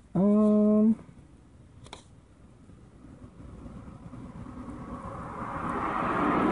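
A short held "hmm" from a person's voice, then a rushing noise that grows steadily louder over the last few seconds, like a vehicle approaching.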